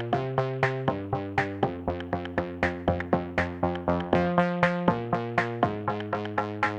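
Electronic background music: synthesizer chords over a steady drum-machine beat of about four to five hits a second.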